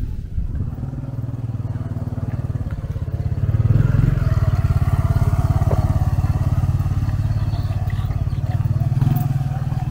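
An engine running steadily close by, with a fast, even pulse, growing louder about three and a half seconds in and staying loud.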